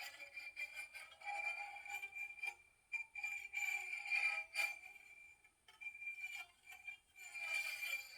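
Guzheng played with experimental techniques to make sound effects: a run of short, bright, glassy plucked or struck notes, each ringing and dying away, over a high ringing tone that carries through most of it. A pause comes around the middle before the notes pick up again.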